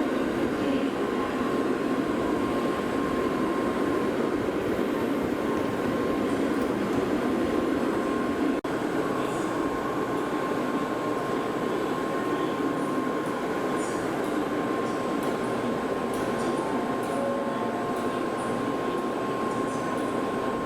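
Shinkansen train running: a steady rail and running noise with a thin, steady whine over it, and a momentary break in the sound about eight and a half seconds in.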